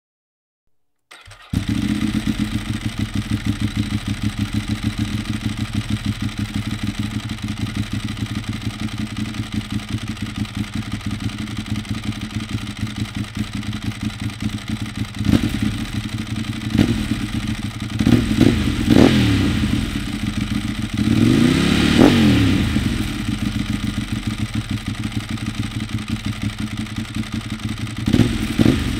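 2007 Ducati 1098S's 1099 cc L-twin running through a Termignoni exhaust, idling with a steady pulsing beat. It is blipped several times and revved once more slowly, rising and falling, before settling back to idle.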